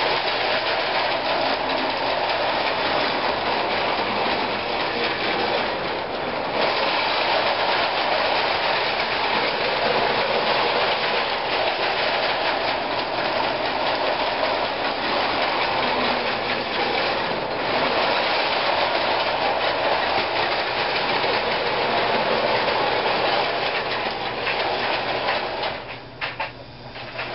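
Marx #490 plastic toy steam locomotive with its clicker, pulling four-wheel plastic cars around three-rail O-27 track: a steady running clatter of motor, wheels and rails. It dips briefly near the end.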